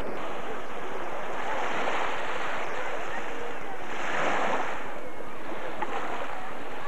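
Small waves breaking and washing up a sandy shore, the surf swelling every two to three seconds over a steady hiss, with wind rumbling on the microphone.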